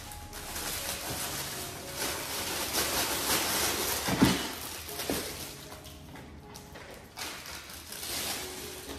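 Clear plastic packaging bag crinkling and rustling as it is handled and pulled open, with a soft thump about four seconds in. The rustling eases off after about five seconds.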